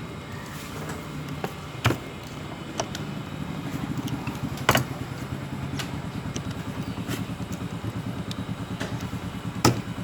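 A steady low mechanical hum that begins pulsing rapidly from about four seconds in, with several sharp clicks or knocks, four of them standing out.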